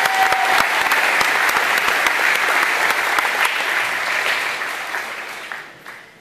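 Audience applauding, many hands clapping; the applause dies away near the end.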